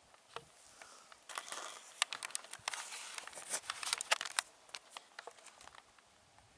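Dry scrub rustling and crackling, with a dense run of quick snaps and scrapes from about a second and a half to four and a half seconds in. This is the sound of someone moving through dry brush close to the microphone.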